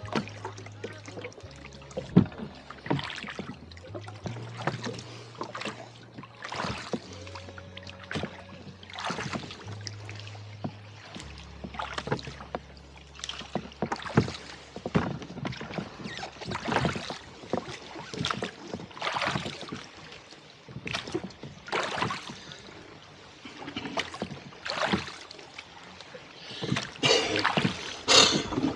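Rowing a boat: oar strokes in a steady rhythm, each with a knock from the oars and a splash of the blades in the water.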